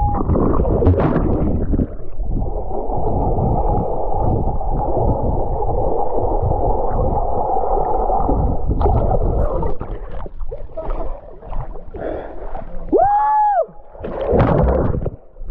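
Underwater sound picked up by an action camera held by a swimmer: a dense, muffled rush of moving water and bubbles. About ten seconds in it turns choppy with splashing as he breaks the surface, and near the end comes a short shout that rises and falls in pitch.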